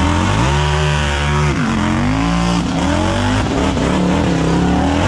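A mud-racing machine's engine is revving high under hard throttle. Its pitch climbs, drops sharply and climbs again several times as it drives through the mud.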